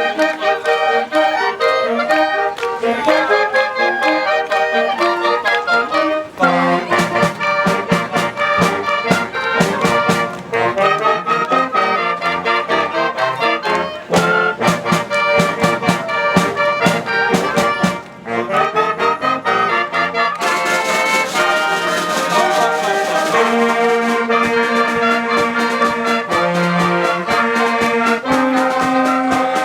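Instrumental music led by brass, with many notes at once and a pulse. The sound changes about six seconds in and again about twenty seconds in.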